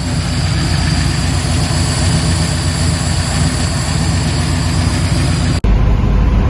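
A 1964 Ford Fairlane's 347 stroker small-block V8 idling steadily, its lifter tick gone now that the bad lifter has been replaced. About five and a half seconds in the sound briefly drops out and comes back deeper and duller.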